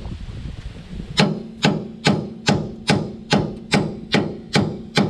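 A hammer striking metal in a steady series of about ten even blows, roughly two and a half a second, starting about a second in, each blow leaving a short ringing note: hammering a suspension bolt out.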